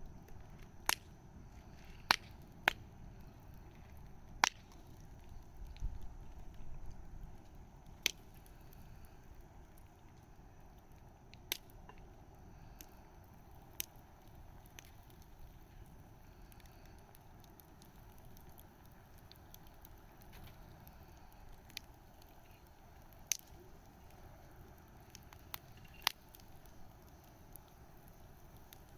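Wood fire burning, with sharp, irregular crackles and pops, about a dozen in all, over a soft steady hiss. A brief low rumble comes about six seconds in.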